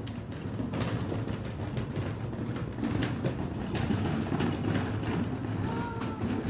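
Plastic wheeled bin rolled across paving stones, its wheels rumbling and clattering over the joints, loudest in the middle.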